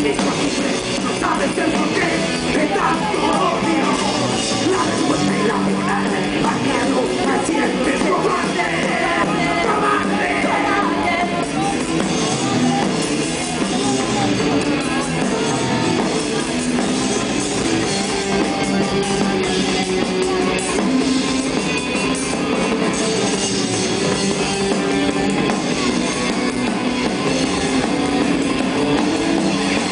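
Punk rock band playing live: electric guitars, bass and drum kit at full volume with no break, heard from the audience.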